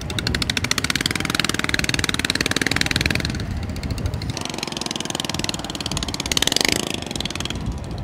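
Honda single-cylinder petrol engine of a long-tail boat running under way, a fast even putter that swells briefly near the end.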